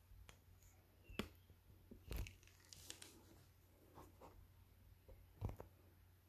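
Quiet room tone with a faint low hum and a handful of scattered faint clicks and knocks. The clearest come a little over a second in, around two seconds in, and about five and a half seconds in.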